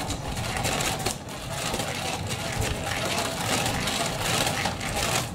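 Motorized cat toy under a fabric cover running: a steady mechanical whirring with a scratchy rustle of the cloth.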